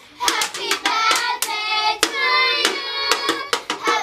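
Children singing together, with sharp hand claps several times a second, starting about a quarter of a second in.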